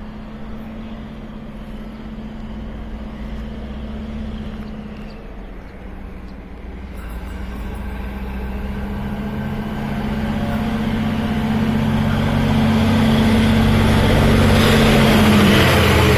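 Diesel locomotive at the head of a freight train approaching, its engine running with a steady low drone that grows louder through the second half as it draws near.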